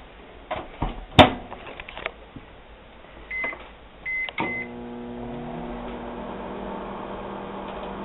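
Microwave oven door shutting with a sharp click and keypad beeps, then the oven starting up: a hum that rises briefly in pitch and settles into a steady drone as it runs.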